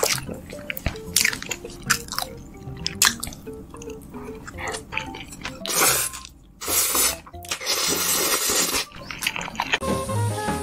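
Close-miked eating: wet chewing and mouth clicks, then three loud slurps of noodles in the second half, the last one long, over soft background music. A jazzy music track takes over near the end.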